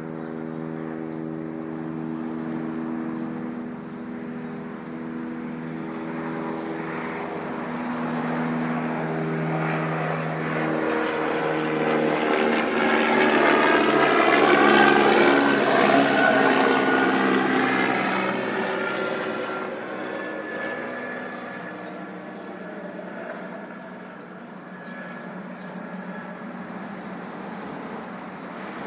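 A low-flying aircraft passing overhead: its engine drone grows louder to a peak about halfway through, then fades away.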